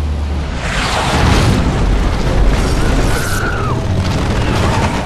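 Movie sound effects of an explosion: deep booms and heavy rumbling that swell about half a second in. A thin high whine bends down in pitch about three seconds in.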